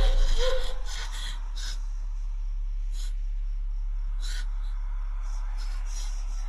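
A frightened woman gasping and then breathing shakily in short, faint breaths over a steady low drone. The gasps are loudest in the first second.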